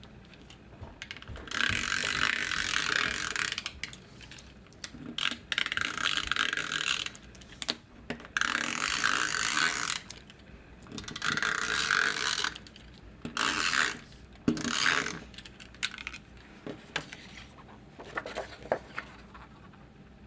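Handheld adhesive tape runner rolled along paper edges in about six strokes of one to two seconds each, its mechanism giving a rasping, clicking run. A few lighter handling clicks follow near the end.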